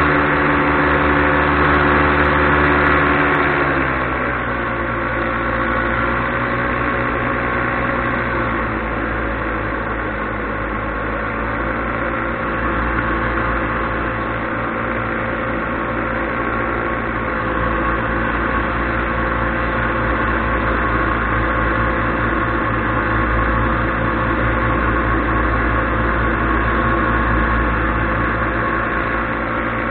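Paramotor engine and propeller running steadily in flight, with a dense hum. The engine note drops to a lower pitch about four seconds in and then holds.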